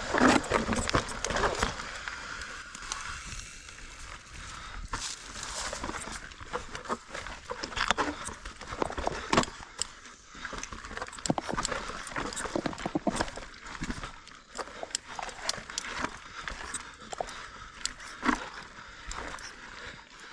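Mountain bike rolling over rocky singletrack: a steady rush of noise broken by many irregular knocks and rattles as the tyres and frame hit rocks.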